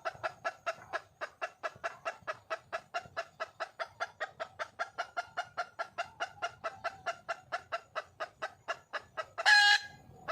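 Red junglefowl hen calling for a mate: a fast, even run of clucks, about five a second, broken near the end by one short, much louder, shrill squawk.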